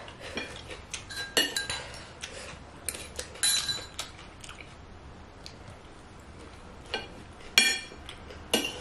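Metal spoons clinking and scraping against a ceramic plate and bowl while eating: scattered sharp clinks, each with a brief ring, the loudest near the end.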